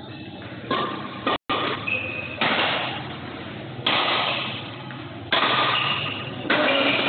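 Badminton rackets striking the shuttlecock in a rally, a sharp hit about every second and a half, each ringing on in the hall's echo.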